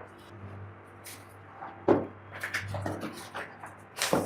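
Cardboard box of a pair of USB speakers being opened and unpacked by hand: a sharp knock about two seconds in, a run of lighter clicks and rustles, and another knock near the end.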